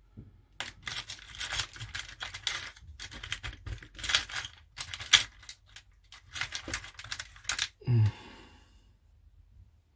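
Irregular small clicks and rustling as electronic parts are handled on a solderless breadboard. A short hummed voice sound comes about eight seconds in.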